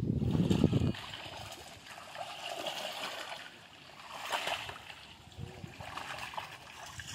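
Water splashing and sloshing, swelling louder about two to three seconds in and again about four and a half seconds in.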